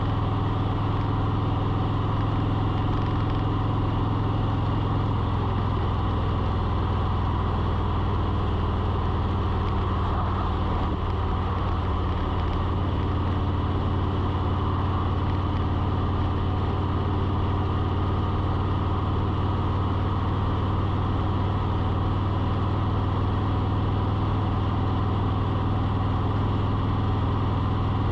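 A motor running steadily: a low, even hum with several held tones, unchanging throughout.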